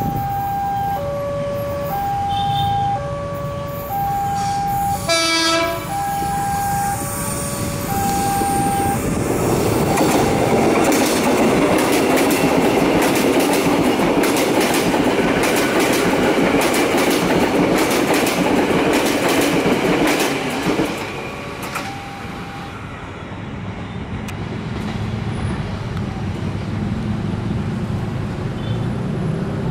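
Level-crossing warning alarm sounding two alternating tones, high then low, about one each second. About five seconds in, an electric commuter train gives a short horn blast. From about ten to twenty-one seconds a KRL electric multiple unit passes close by, its wheels clattering over the rail joints.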